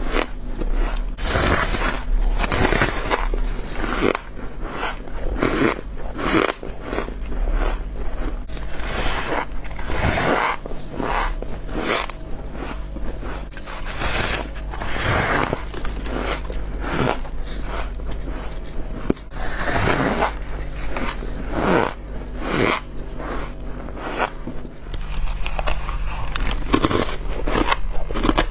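Bite after bite into packed freezer frost, each a squeaky, crispy crunch, repeating every second or so with no pause.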